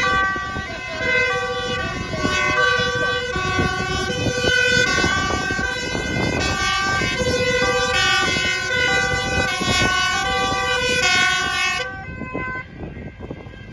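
Several two-tone emergency-vehicle sirens from a passing convoy of police motorcycles and fire trucks, each stepping back and forth between a high and a low note and overlapping out of step, over engine noise. The sirens cut off suddenly near the end.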